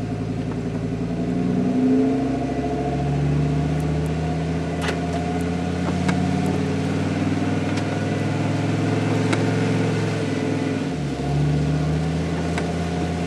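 A 1999 Dodge Ram 3500's V10 running through a Flowmaster exhaust, heard from inside the cab while driving. Its note climbs about two seconds in, holds steady, and steps to a new pitch near eleven seconds.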